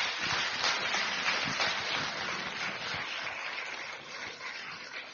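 Audience applauding, a dense patter of many hands clapping that gradually dies down.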